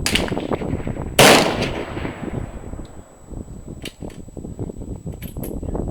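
A single loud rifle shot about a second in, with a fainter sharp crack just at the start and a few light clicks later.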